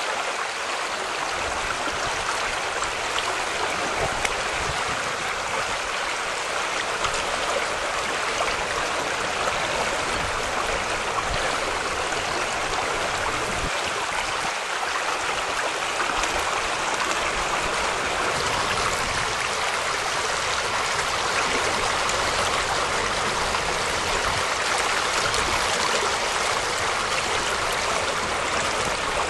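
Floodwater of the Buffalo River rushing steadily under a bridge and past slabs of jammed ice, an even rushing noise without breaks.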